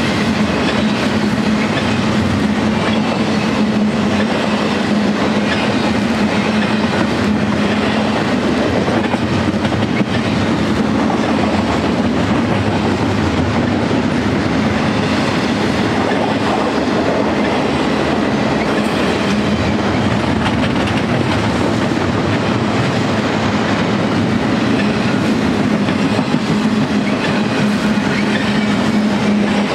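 Double-stack container train's loaded well cars rolling past close by: steady noise of steel wheels on the rails, with a steady low hum under it.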